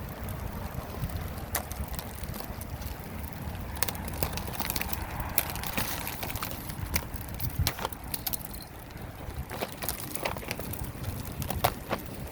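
Freezing rain and sleet striking ice-glazed surfaces as irregular sharp ticks and cracks, denser after the first few seconds, over a low rumble of wind on the microphone.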